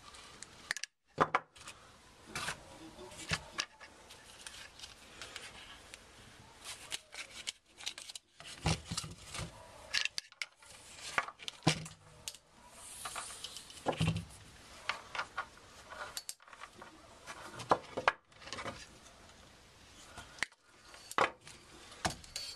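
Diagonal cutters snipping lengths of insulated wire from spools, with scattered sharp clicks and knocks as the wire, spools and cutters are handled and set down on a wooden bench.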